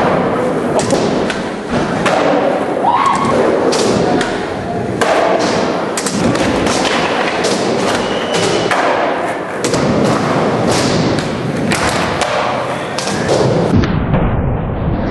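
Skateboards rolling on ramps in a large indoor hall, with many sharp board and wheel impacts from tricks and landings, several a second at times.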